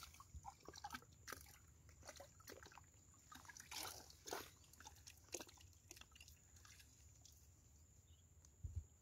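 Faint, scattered crackling and rustling of a hand working through dry grass stems and mud at a crab burrow's mouth, busiest about four seconds in and thinning out toward the end.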